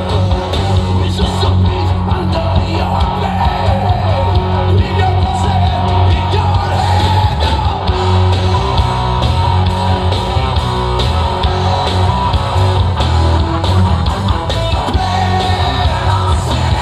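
Live rock band playing loud, with heavy distorted electric guitars, a thick bass and drum low end, and a voice singing over it. The music runs on without a break.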